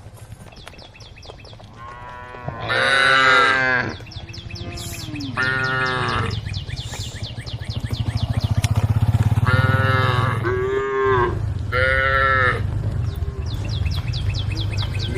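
Cattle mooing repeatedly, several separate drawn-out calls a few seconds apart, over a low steady hum and a fast, even ticking.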